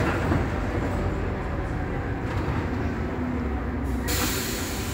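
Scania Omnidekka double-decker bus under way, heard from the front of the upper deck: a steady low rumble of engine and road noise, with a short hiss near the end.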